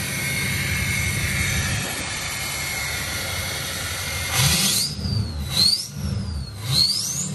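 2005 Ford F-250's 6.0-litre turbo-diesel V8 idling through an upgraded exhaust, then revved three times in quick succession. Its turbo whistle rises with each rev and falls away between them.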